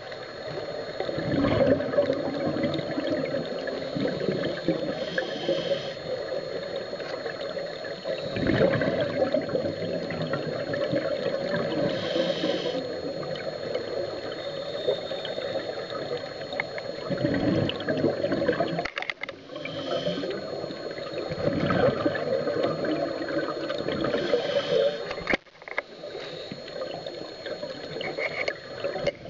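Muffled underwater gurgling and bubbling, with a louder rush of bubbles every several seconds, four times in all, typical of a scuba diver exhaling through a regulator.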